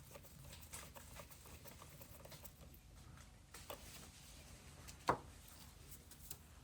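Faint scattered clicks and taps of small parts and tools being handled, with one sharper click about five seconds in.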